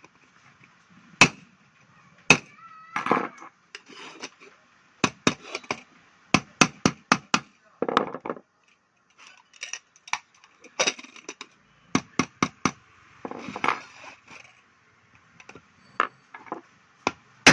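Sharp metal taps and clinks on an aluminium pressure cooker and its lid as it is worked on by hand with tools, coming in quick clusters of several a second with a few longer scraping sounds between.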